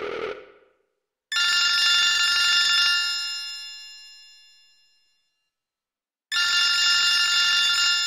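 BlackBerry 8700g ringtone playing a bright, bell-like ring made of many steady tones, held about a second and a half and then fading away. It sounds twice, about five seconds apart, with silence between.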